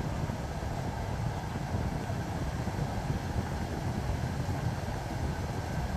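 Steady low rumble of road traffic, with no single event standing out.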